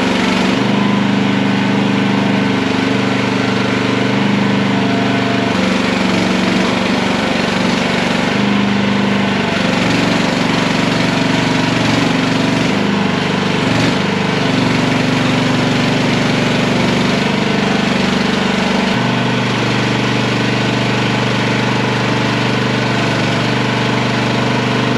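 Mini skid steer's engine running, its pitch stepping up and down every few seconds as the machine works.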